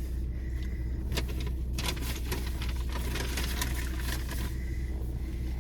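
A steady low hum, with scattered soft clicks and smacks of someone eating.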